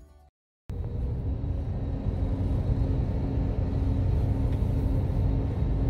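A bus engine's steady low rumble with a faint pulsing hum, cutting in after a brief silence less than a second in, as the tail of background music ends.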